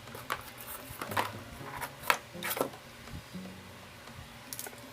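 A handful of light clicks and knocks from small electronic gear being handled, over faint background music.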